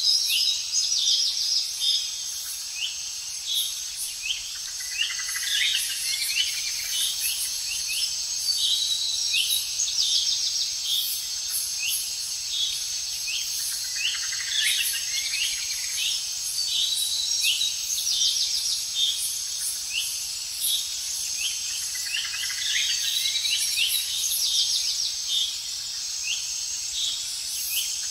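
Forest ambience: many short bird chirps and calls, with a few quick trills, over a steady high-pitched insect drone.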